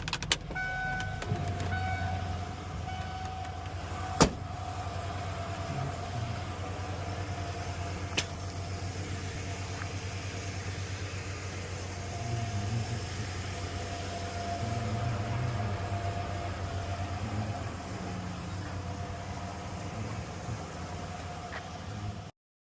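Ford F-150 pickup engine running steadily, a low even hum, with two sharp clicks about four seconds apart. It cuts off abruptly near the end.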